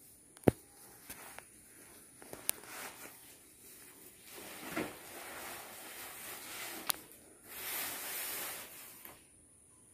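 Woven plastic floor mat rustling and scraping as it is handled and rolled over a concrete floor, with a few sharp clicks, the loudest about half a second in.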